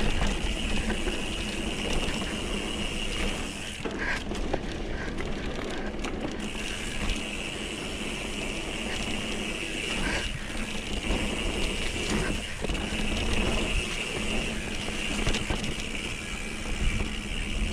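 Mountain bike rolling fast down a dirt flow trail: tyre rumble and wind rushing over the microphone, with a steady high buzz that breaks off about four seconds in and returns about two seconds later.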